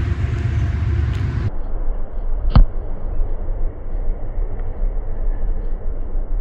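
Wind buffeting the microphone as a steady low rumble, with one sharp thud about two and a half seconds in.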